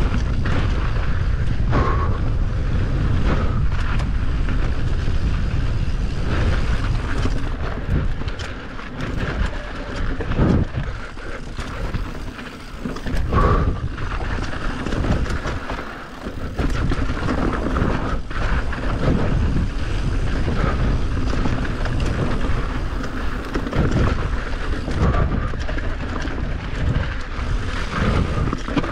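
Enduro motorcycle engine being ridden hard along a trail, revving up and easing off with the throttle. It is quieter and more uneven for several seconds in the middle.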